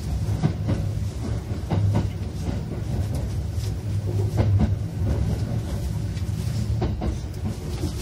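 Interior running noise of a JR West 681-series limited express EMU moving slowly out of the station: a steady low hum with irregular clicking and clacking from the wheels over rail joints.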